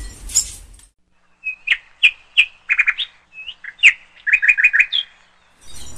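Small songbird chirping: a run of short, high chirps and quick trills.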